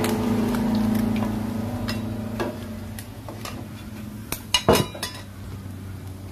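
Metal spatula clinking and scraping against a wok and plate as fried fish is moved out of the pan, with a cluster of sharp clinks about four and a half seconds in. Under it, a steady low hum fades away over the first few seconds.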